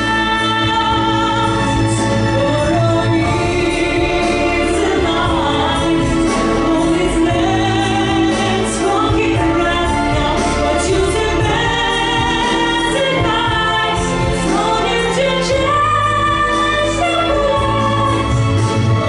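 A solo singer performing a pop-jazz song, with a melody that glides between held notes, over an instrumental accompaniment with sustained bass notes.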